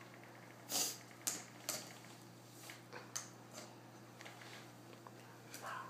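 A few scattered light taps and clicks, the loudest about a second in, as a plastic marker is handled and knocked against a plastic tray and the items on it (a protractor and a notebook). A faint steady hum lies underneath.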